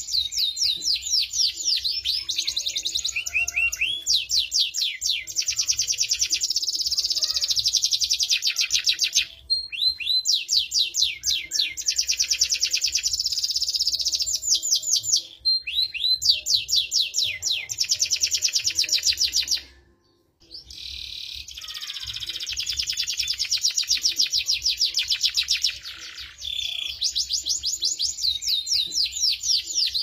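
Domestic canary singing long, fast rolling trills and varied phrases, with short breaks every few seconds and a complete pause about two-thirds of the way through.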